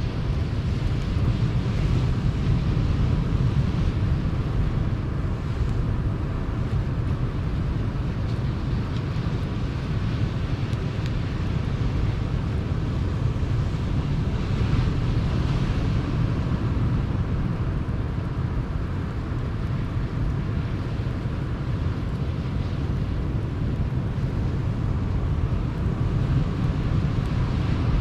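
Ocean surf rumbling steadily on the shore, with wind buffeting the microphone; a wave washes in with a brighter hiss about halfway through.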